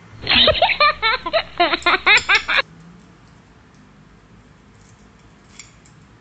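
A burst of high-pitched giggling laughter for about two and a half seconds, then quiet room tone. Near the end there is one faint tap, as the metal chopsticks touch an egg.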